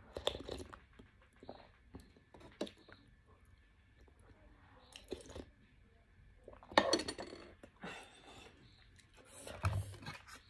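Close-up chewing of noodles, with soft wet mouth clicks spread through and a louder spell of mouth and utensil noise about two-thirds of the way in.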